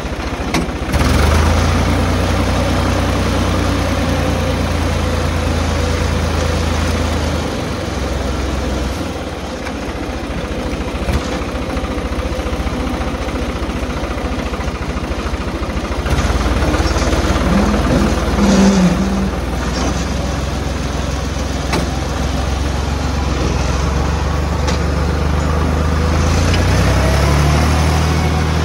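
Farm tractor's engine running as the tractor drives, its note rising and falling a few times.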